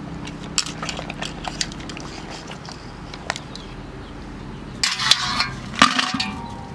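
Jhinuk shellfish shells clicking against each other and the basin as they are scrubbed in water. About five seconds in, a louder burst of clattering shells and splashing water as a handful is lifted.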